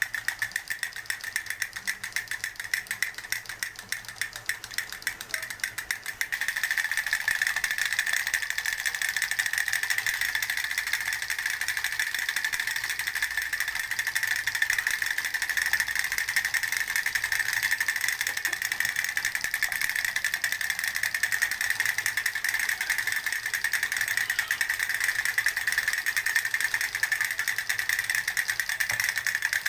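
Fast, steady mechanical rattle of rapid clicks with a high ringing tone, growing louder about six seconds in.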